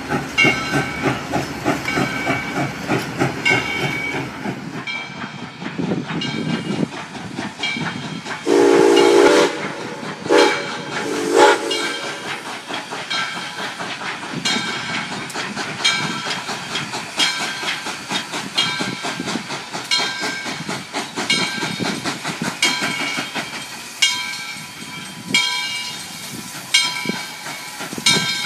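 Coal-fired steam locomotive working along with rhythmic exhaust chuffing and hissing steam. About eight seconds in, its steam whistle sounds one long blast followed by two short ones.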